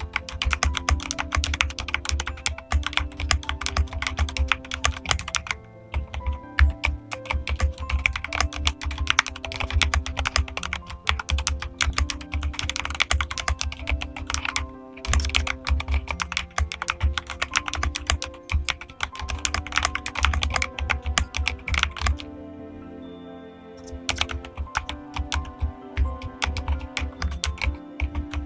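Fast, continuous typing on a modded Keychron mechanical keyboard: a dense stream of key clacks in long runs, pausing briefly a few times, with background music underneath.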